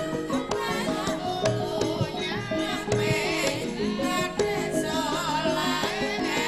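East Javanese gamelan music with female sinden singing: a wavering vocal line over the steady ringing notes of the bronze instruments, with hand-drum strokes.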